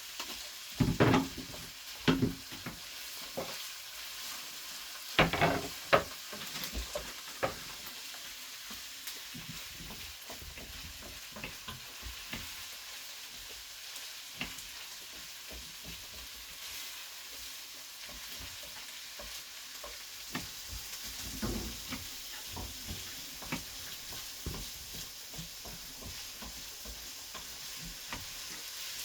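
Bacon, garlic and soffritto frying in olive oil with a steady sizzle, stirred in the pan. A utensil knocks and scrapes against the pan a few times, mostly in the first six seconds and again a little past two-thirds of the way in.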